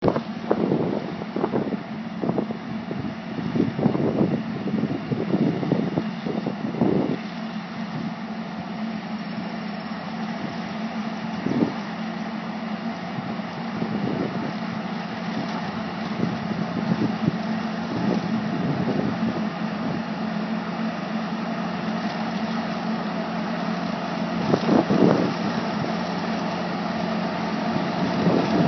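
Tractor running a vineyard hedger, a steady engine hum that grows louder near the end as the machine comes closer. Gusts of wind buffet the microphone, most in the first several seconds and again shortly before the end.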